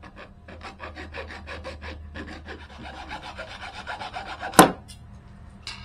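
Rapid rasping strokes of a hand tool cutting away a plastic part, about five strokes a second, followed by a single loud sharp knock near the end.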